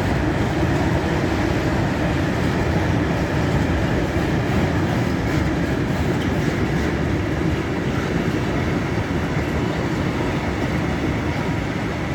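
Mixed freight train rolling through the station, its wagons' wheels running on the rails with a steady rumble that eases slightly near the end.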